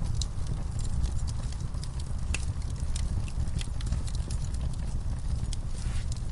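Wood campfire burning, with frequent irregular crackles and sharp pops over a low steady rumble.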